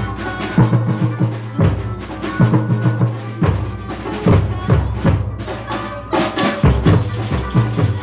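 Live samba percussion ensemble playing: deep surdo bass drums beating a steady rhythm, with snare drum and other hand percussion hitting densely over them.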